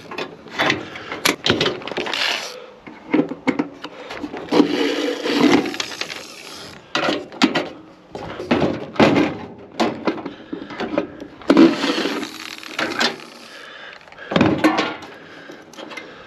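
A microwave oven being taken apart for scrap: an irregular run of knocks, clanks and cracks from metal and plastic parts being pried, snapped and handled, with rough scraping between the hits.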